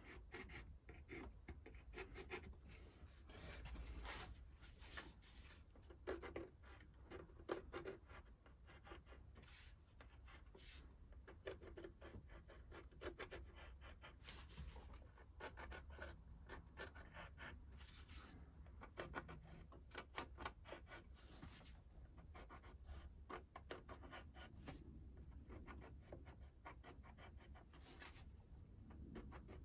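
Faint pencil scratching in quick short strokes, marking gun port positions onto a wooden model ship hull through a paper template.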